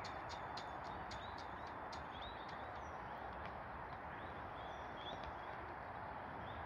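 Small birds chirping in short, high, up-curving calls, scattered from about a second in, over a steady rushing outdoor noise. A quick run of faint high ticks comes in the first two seconds.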